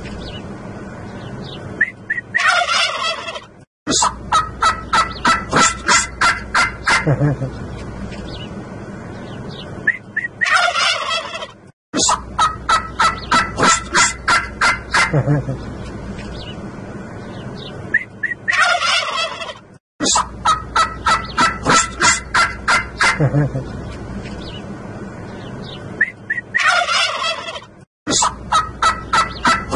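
A flock of strutting domestic turkey toms gobbling, calls from several birds overlapping in runs of quick rattling strokes. The same stretch of gobbling repeats about every eight seconds, with a brief cut-out between repeats.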